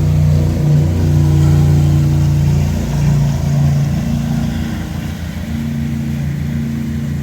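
Motorboat engine running loud and steady, its pitch shifting about three to four seconds in.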